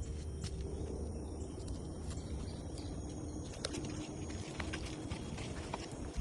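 Forest insects trilling steadily, with scattered light clicks of footsteps on the trail and a low rumble underneath.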